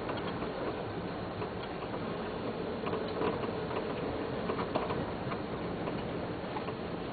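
Irregular light knocks and rattles from the left side of a Nissan AD's front suspension or steering, over a steady background noise. The owner suspects the steering rack, or a part fitted wrongly when the strut spring was replaced.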